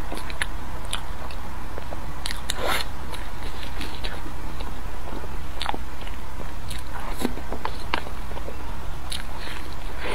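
Close-miked eating sounds: a person biting into and chewing soft chocolate-glazed pastry buns dipped in melted chocolate, heard as scattered short mouth smacks and clicks over a steady low hum.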